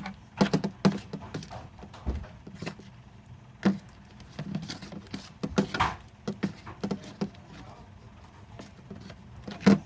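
Irregular clicks and taps of a mixing tool stirring sticky glue-and-Tide slime in a bowl.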